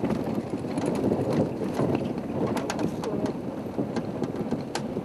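Game-drive vehicle's engine running as it creeps slowly forward, with a few sharp knocks and rattles.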